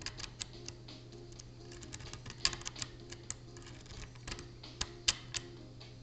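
Lock pick working inside the keyway of a Mauer MLS euro-profile cylinder: irregular small metallic clicks and ticks from the pick against the pins, a few louder ones around two and a half seconds and five seconds in.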